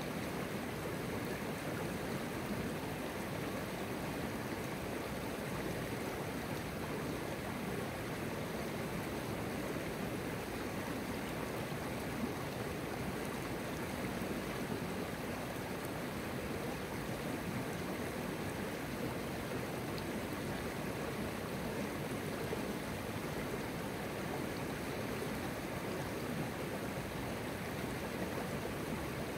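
Shallow river flowing steadily over stones: an even, unbroken rush of running water.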